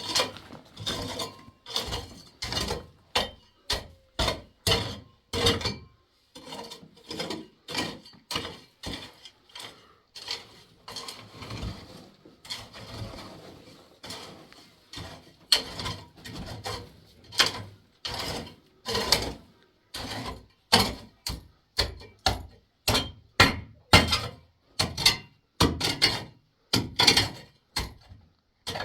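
A long series of short, sharp knocks or scrapes, about two a second and uneven in loudness, with a looser, more scattered stretch in the middle.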